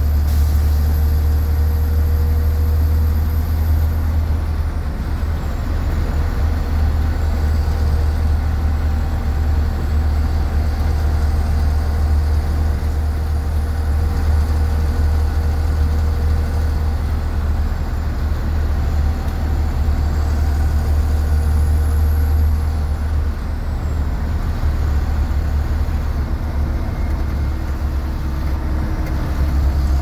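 A 2004 Blue Bird 3800 school bus cruising at highway speed, heard from inside at the front: the International DT466E inline-six turbo diesel and Allison MD3060 automatic make a steady low drone, under road noise. A faint high whistle rises and falls in pitch.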